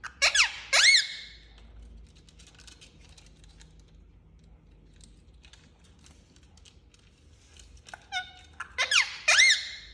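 Indian ringneck parakeet giving loud, shrill arched calls: a burst of about three at the start, then several seconds with only faint clicks, then another burst of four or five calls near the end.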